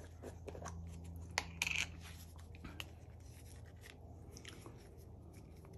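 Screw-top plastic lid being twisted off a small jar of two-part epoxy, with a short scrape of lid threads about one and a half seconds in, then faint clicks and rubbing as the jar and a wooden mixing stick are handled in nitrile gloves. A low steady hum sits underneath and fades partway through.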